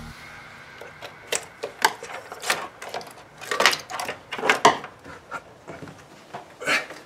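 Irregular clicks, taps and rattles of plastic and metal being handled at a car's fuse and relay box, the loudest few coming together around the middle.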